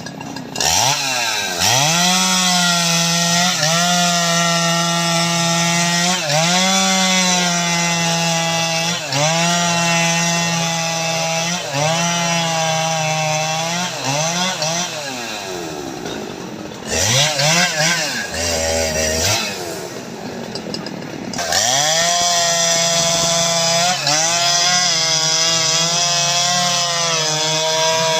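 Jonsered 2095 Turbo's 93.6 cc two-stroke chainsaw engine running at full throttle while cutting teak, its pitch dipping briefly every two to three seconds as the chain bites into the wood. About halfway through it eases off, blips the throttle a few times, and near three-quarters in it goes back to full throttle in the cut.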